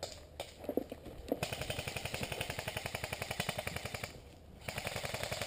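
Airsoft electric gun firing on full auto: a fast, even rattle of shots lasting over two seconds. After a short break, a second burst starts near the end. A few single clicks come before the first burst.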